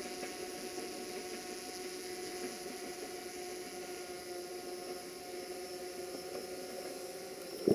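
Diesel locomotive hauling a departing passenger train, its engine heard as a steady drone with a hum of several steady tones. A short, loud thump comes right at the end.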